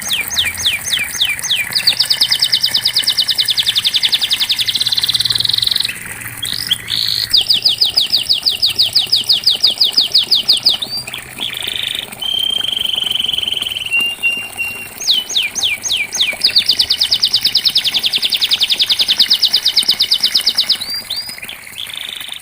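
Domestic canary singing: long rolls of fast, evenly repeated high notes lasting several seconds each, three times, with slower sweeping notes and a short held whistle between them.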